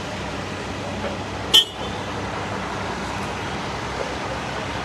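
Steady street noise from engines and traffic, with one short, sharp, high-pitched chirp about a second and a half in.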